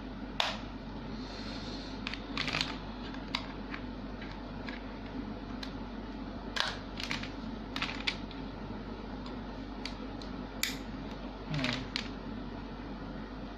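Irregular sharp plastic clicks and taps from a Baofeng BF-T3 walkie-talkie being handled, about ten over the stretch, over a steady low hum.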